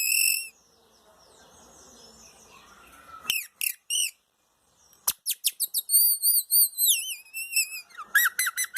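Birdsong imitated by sucking air past a small plastic strip held against the upper lip. It gives loud whistled calls: a held call at the start, three quick notes near the middle, then a run of rapid chirps and a warbling trill, with fainter bird chirping between the groups.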